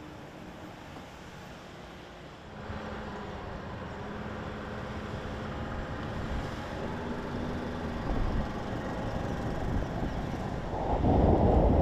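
A vehicle engine running with a steady hum, rising in level about two and a half seconds in and louder again near the end.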